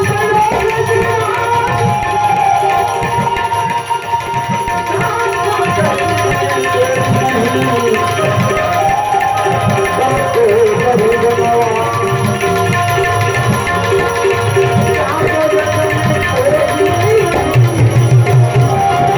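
Instrumental music of a bhajan: tabla drumming a steady rhythm, with a melody instrument playing wavering lines over it.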